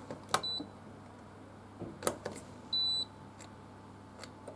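Buttons on a Hoover Silent+ HED 120W dishwasher's control panel being pressed to select a wash programme: sharp clicks and two high electronic beeps, a short one just under half a second in and a longer one near three seconds.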